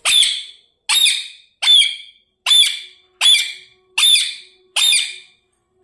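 Pet parrot giving seven shrill calls in a steady series, about one every three-quarters of a second, each sharp at the start and quickly fading.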